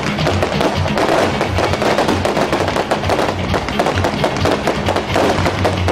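Fireworks display: aerial shells bursting overhead amid dense crackling and popping, many sharp cracks a second without a break.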